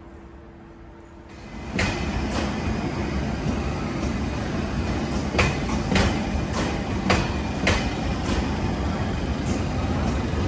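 Quiet room tone with a steady hum, cutting at about a second and a half to the sound of a railway station platform beside standing passenger trains. There is a steady low rumble, with a string of sharp clicks or knocks roughly every half second to second.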